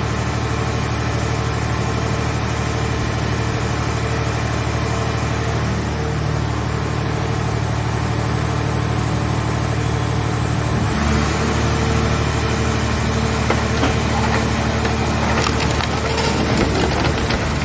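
Car-body baler's power unit and hydraulic pump running steadily under load. About eleven seconds in its note shifts, and irregular sharp cracks and creaks follow as the car shell is crushed.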